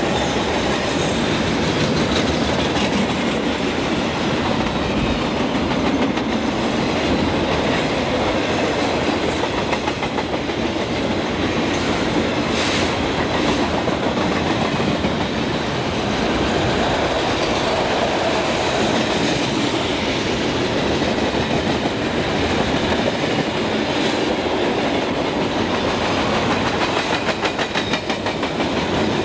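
Freight train cars rolling past, the steel wheels clicking rhythmically over rail joints with a steady rumble. A short burst of sharper clanks comes about 12 seconds in, and a run of rapid clicks near the end.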